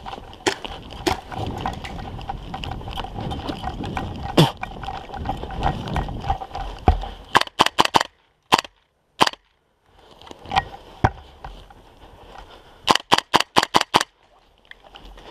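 Gas blowback airsoft rifle firing semi-auto shots as sharp cracks: a quick string of four or five past the middle, two single shots just after, and a fast run of about six near the end. Before the shooting, crunching and rustling of someone moving over snow.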